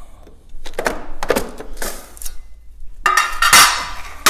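Threshold cover being pulled out of a patio door frame: a few knocks and clacks about a second in, then a louder scraping rattle near the end.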